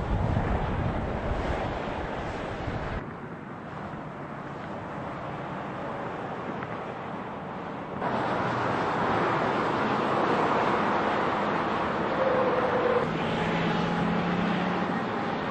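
Steady vehicle noise with a rush of wind, changing abruptly about three and eight seconds in.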